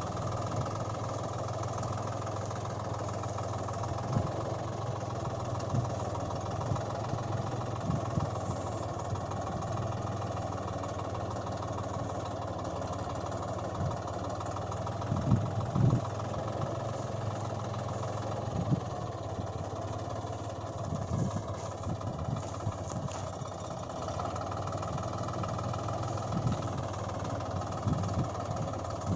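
An engine idling steadily, with short low thuds now and then, the loudest about halfway through.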